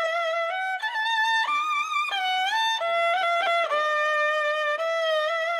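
Gaohu, the high-pitched Chinese two-string bowed fiddle, playing a solo melody of held notes that slide from one pitch to the next, with vibrato. It is a short recorded sample playing back.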